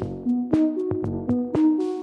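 Background electronic music with synthesizer notes over a steady drum beat.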